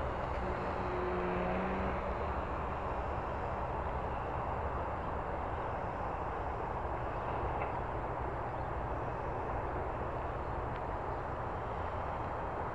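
Steady rushing wind noise on the microphone, with the faint drone of a radio-controlled Fokker biplane's motor flying overhead, most audible as a low hum about a second in.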